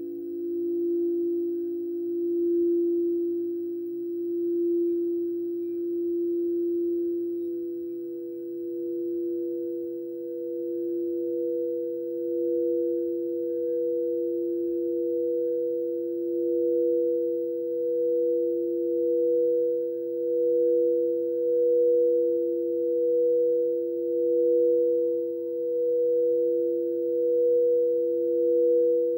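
Two frosted quartz crystal singing bowls, a large and a small one, rung at once by mallets circling their rims: two steady sustained tones, one lower and one higher, with a slow wavering swell. The higher tone grows louder in the second half.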